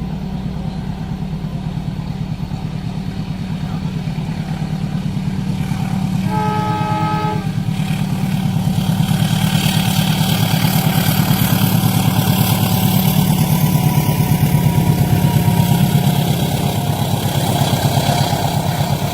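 A train at a level crossing: an engine runs steadily with a low drone, and a horn sounds once for about a second and a half some six seconds in. Then the rushing noise of a train passing on the rails builds up, loudest near the end.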